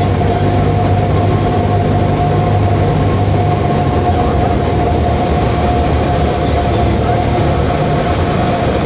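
Cabin noise of a Cessna 172M Skyhawk landing: its four-cylinder Lycoming engine and propeller drone steadily at low power, with a steady hum running through it. The low engine note shifts slightly about four seconds in.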